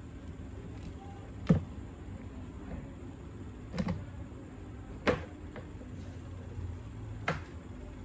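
Plastic model-airplane parts handled and fitted together on a wooden worktable: four sharp clicks and knocks, the first the loudest, over a steady low hum.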